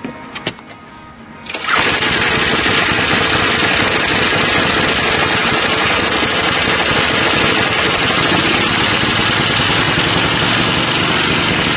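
A few sharp clicks, then a Tecumseh Snow King 5 hp snow-thrower engine catches suddenly just under two seconds in and runs steadily and loudly.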